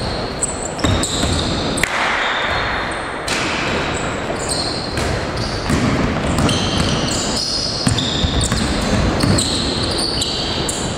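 Live basketball play on an indoor court: the ball bouncing on the floor at irregular intervals, mixed with short high-pitched squeaks of sneakers on the court.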